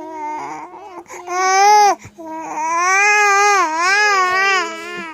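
A small child's whiny, wavering cries while fussing for food: a short one, a louder rising one, then a long drawn-out one about two seconds in.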